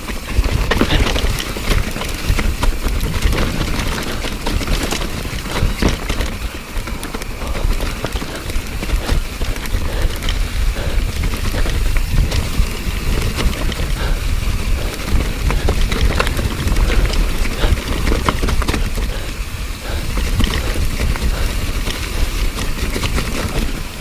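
Mountain bike descending a rough trail of rocks under wet leaves: tyres crunching through the leaf litter and the bike rattling, with many sharp clicks and knocks over the rocks. A steady low rumble of wind on the microphone lies under it.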